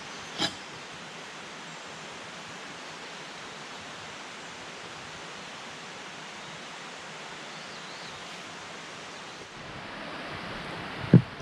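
Steady rushing of a mountain stream, with a sharp tap about half a second in and a short, dull knock near the end.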